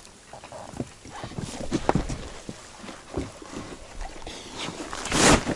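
Irregular knocks, clicks and low thuds of handling, with a short loud rush of noise about five seconds in.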